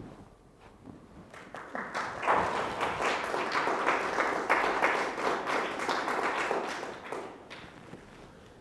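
Audience applauding: scattered claps that swell into steady applause about two seconds in, hold for several seconds, then die away near the end.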